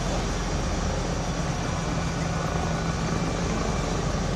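Steady drone of engines running, with a low, even hum under a wash of noise.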